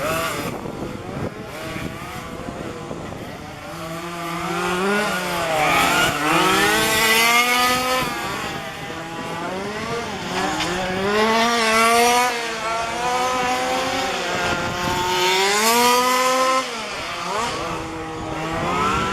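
Small two-stroke petrol engines of 1:5-scale RC cars racing, revving up and down through the corners. The engine note rises and falls over and over, with louder passes about six, twelve and sixteen seconds in.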